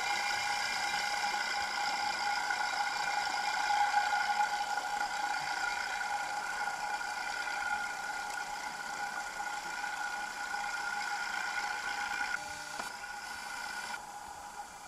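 Steady mechanical whine of several held tones over a light hiss, recorded underwater. It steps down in level about twelve seconds in and again near the end.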